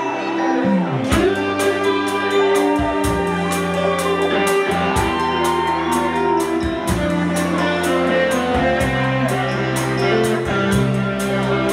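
Live rock band playing: electric guitars over bass, with the drum kit coming in about a second in and keeping a steady beat with cymbals.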